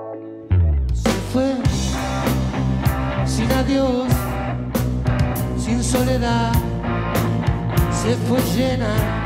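Live rock band music: a held chord, then about half a second in drums, bass and electric guitar come in together, with a lead line of bending notes over the beat.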